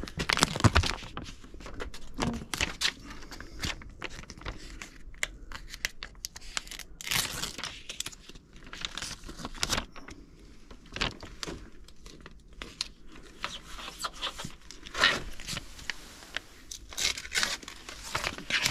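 Irregular rustling and scraping noises with scattered sharp knocks.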